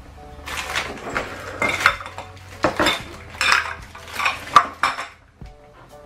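Maria biscuits snapped by hand and dropped into a glass blender jug of milk: a string of crisp cracks and light clinks against the glass over about five seconds.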